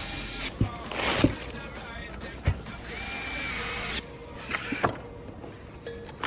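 Several sharp clicks and short swishing sounds over background music.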